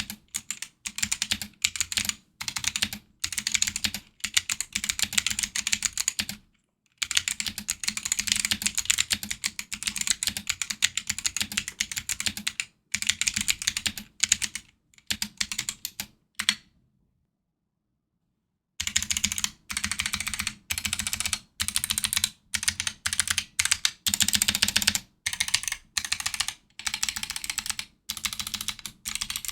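Typing on a Drop ALT mechanical keyboard with stock, unlubricated Kailh Box Jade clicky switches and PBT keycaps: fast runs of sharp clicky keystrokes in bursts with short pauses, stopping for about two seconds just past the middle.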